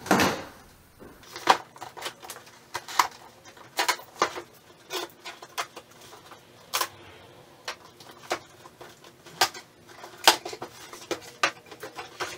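Cardboard shipping box being cut open and its flaps pulled back: irregular cardboard rustling, tearing and scraping with many sharp knocks and snaps, loudest right at the start.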